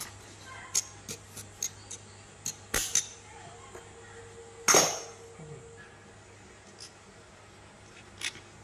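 Metal tools and parts being handled during a gearbox rebuild: a run of light metallic clicks and clinks, then a louder clank about halfway through that rings briefly, and a couple of faint clicks near the end.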